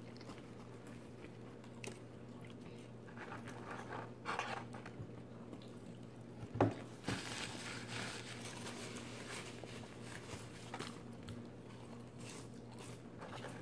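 Someone chewing and biting fast food close to the microphone, with small wet clicks and crunches over a steady low hum. A brief, louder sound comes about six and a half seconds in.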